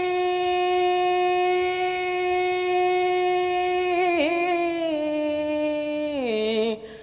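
A young man singing a Bengali folk song unaccompanied, holding one long note on the end of a line. The note wavers briefly about four seconds in, then slides down in pitch and fades out near the end.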